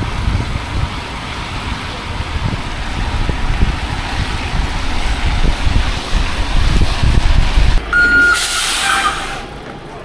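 Wind rumbling over a moving camera's microphone while cycling in city traffic. About eight seconds in comes a brief high squeal, then a sharp hiss lasting about a second.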